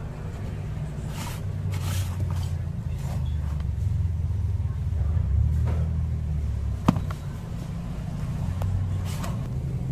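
A low, uneven rumble throughout, with brief rustles and scrapes of a cardboard box being handled and one sharp tap about seven seconds in.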